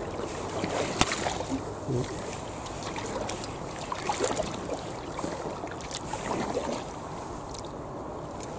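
Kayak paddle strokes in calm canal water: the blades dipping, splashing and dripping, with small clicks and one sharp knock about a second in.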